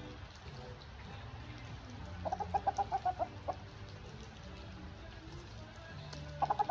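A rooster clucking as he is grabbed and lifted. A quick run of sharp, rapidly repeated notes lasts about a second and a half, starting about two seconds in, and a shorter burst comes near the end.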